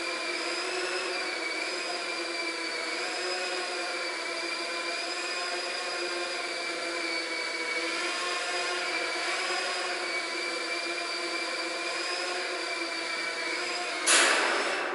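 Small quadcopter drone flying, its motors and propellers giving a steady multi-toned whine that wavers slightly in pitch. Near the end the whine stops and a sudden loud noise breaks in.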